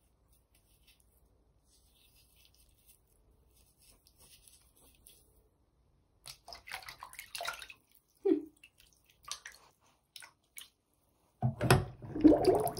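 A hand splashing and sloshing water in a filled bathroom sink. The first half is almost quiet; scattered splashes start about halfway through, and a louder run of splashing comes near the end.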